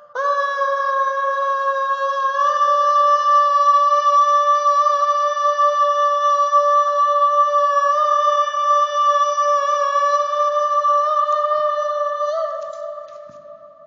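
A high singing voice holds one long wordless note for about twelve seconds. It steps up in pitch near the end, then fades out.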